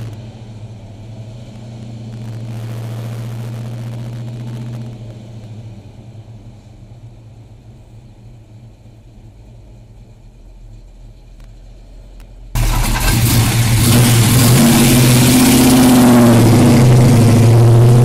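1970 Chevelle SS 396's big-block V8 running while the car is driven, heard at a moderate level from inside the cabin. About two-thirds of the way through, it switches abruptly to the car heard from outside, much louder, as it accelerates away.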